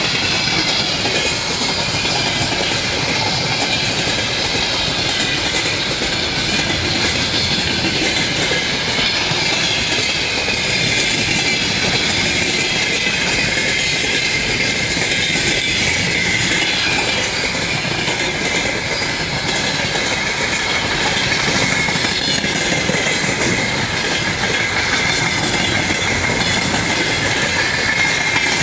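Railway wagons rolling past at close range with continuous wheel-on-rail rumble and clatter. Over this runs a wavering high screech of steel wheels on the rails.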